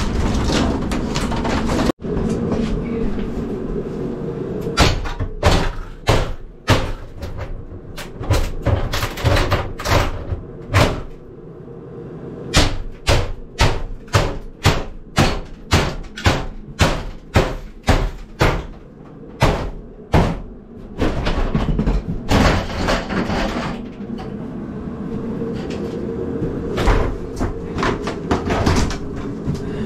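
A hammer striking repeatedly: a run of sharp blows, about two a second through the middle of the stretch, with scraping and handling noise around them.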